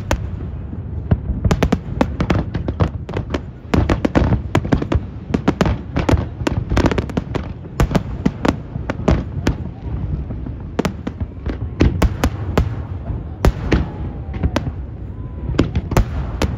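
Aerial fireworks display: shells bursting in a dense, continuous barrage of sharp bangs and crackles, several a second, over a low rumble.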